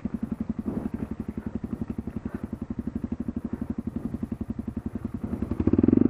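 Motorcycle engine running at low revs with an even, rapid chugging pulse, swelling louder briefly near the end as it is revved.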